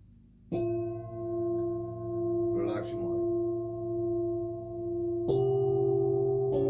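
Metal singing bowls struck with a mallet, three strikes (about half a second in, about five seconds in and near the end), each leaving several ringing tones that hang on and slowly waver, with a brief rustle between the first and second strike.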